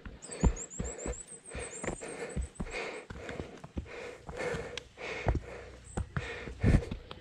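Footsteps on a mountain path with a hiker's breathing, irregular knocks about twice a second. A small bird sings a quick run of high chirps during the first three seconds.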